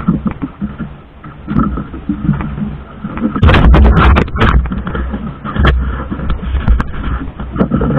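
Working noise aboard a small outrigger fishing boat at sea: a steady low rumble with scattered knocks and scrapes from handling a rope and the catch. About three and a half seconds in, a loud burst of noise lasts roughly a second.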